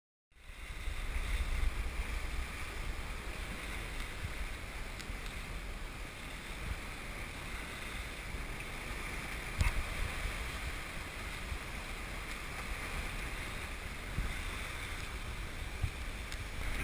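Wind buffeting the microphone and sea rushing past the hull of a sailboat under way in rough water, a steady rush with a heavy low rumble. A single sharp knock comes about ten seconds in.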